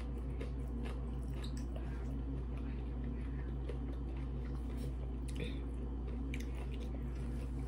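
Close-up chewing and wet mouth sounds of someone eating crisp cucumber slices, with scattered small crunches and clicks, over a steady low hum.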